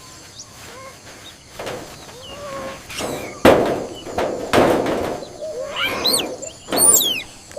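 Short, squeaky animal calls, several quick rising and falling squeals, among a few brief noisy bursts of rustling or knocking.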